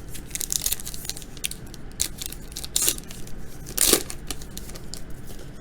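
A baseball card pack wrapper being torn open and crinkled by hand, a run of short rustles with two louder rips about three and four seconds in.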